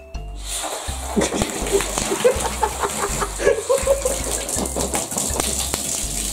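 Cola erupting from a mouth filled with Mentos: a loud fizzing hiss of foam that starts about half a second in, with wet gurgling and gagging from the drinker's throat as he nearly chokes.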